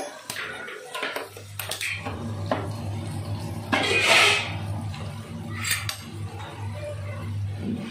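Gas stove burner being lit with a hand-held spark lighter: a few sharp clicks, then a steady low hum once the flame is burning, and a loud hiss about four seconds in. Near six seconds, a steel pot clinks down onto the burner.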